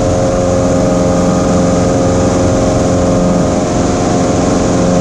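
Cessna 172's piston engine and propeller running steadily at constant power, a continuous drone with a fixed pitch.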